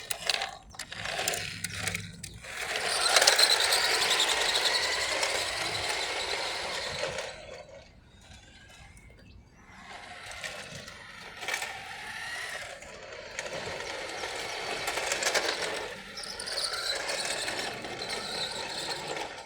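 Small electric motors and gears of toy remote-control cars whining as they race, rising and falling in pitch as the cars speed up and turn. The sound is loudest a few seconds in, fades to almost nothing around the middle, then picks up again.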